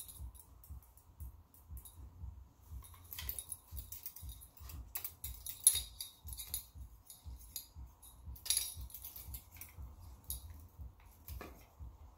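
Handling noise from rigging a speargun with stiff monofilament line: scattered small clicks, taps and rustles as the line is threaded and the gun and its metal clip swivel are moved. The sharpest click comes about five and a half seconds in, with another cluster of clicks around eight and a half seconds.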